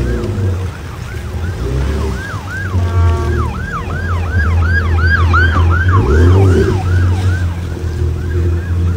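Emergency vehicle siren on a fast yelp, rising and falling about three to four times a second, growing louder toward the middle and then fading away. About three seconds in a short steady horn blast sounds over it, and a constant low rumble runs underneath.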